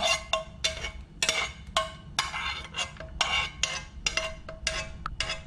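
Spoon knocking and scraping against a nonstick pan, about three or four strikes a second, each with a short ringing tone, as blanched shredded potatoes are pushed out into a mesh strainer to drain off the water.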